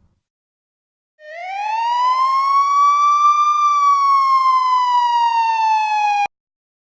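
A siren-like sound effect: one long pitched wail that starts about a second in, rises for a couple of seconds, then slowly falls and cuts off suddenly near the end.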